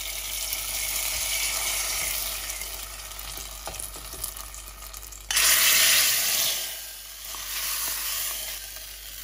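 A hot tempering of mustard seeds and curry leaves fried in ghee sizzles as it is poured into a pot of yogurt curry. About five seconds in, a sudden louder burst of sizzling follows as a ladle of curry goes into the still-hot tempering pan, then it eases off.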